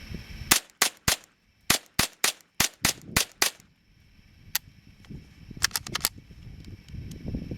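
A rapid, irregular series of sharp, short cracks like small-calibre shots or cap-gun pops: about ten in the first three and a half seconds, a single one a second later, then four in quick succession around six seconds in.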